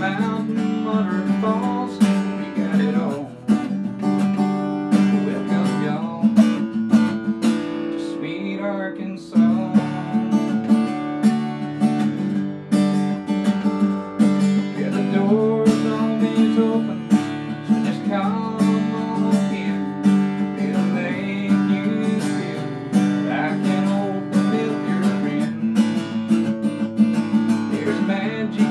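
Acoustic guitar strummed in a steady rhythm, playing chords as a song accompaniment.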